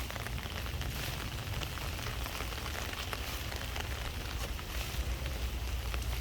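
Steady rain falling: a continuous even hiss with fine patter and a low rumble underneath.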